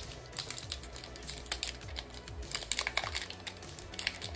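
A foil Pokémon booster-pack wrapper being torn open and crinkled by hand, giving a rapid, irregular run of sharp crackles and rustles.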